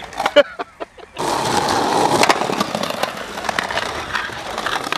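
Skateboard rolling on concrete: a steady rumble of the wheels, starting a little over a second in, with small clicks and knocks throughout.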